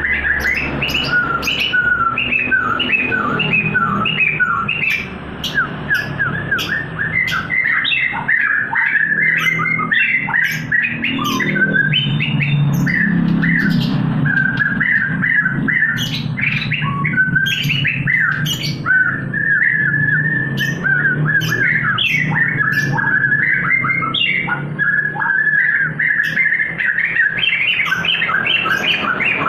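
A songbird singing continuously in a rapid, squawky chatter of short chirps and trills, over a low steady hum. It is a lure song played to stimulate a caged bird that has stopped singing.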